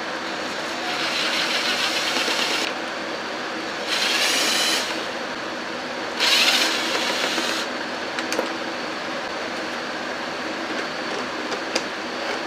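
Hand ratchet wrench clicking in three runs, each a second or so long, as it is worked back and forth on a bolt, with a few single ticks later and a faint steady hum underneath.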